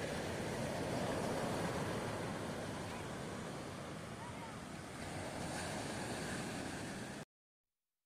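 Sea surf breaking and washing up the beach, rising and falling in slow swells, with wind noise on the microphone. The sound cuts off suddenly about seven seconds in.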